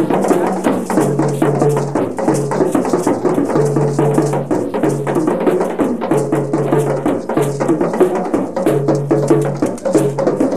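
Percussion-driven dance music: fast, dense drum and rattle strokes over a short low melodic figure that repeats every second or so.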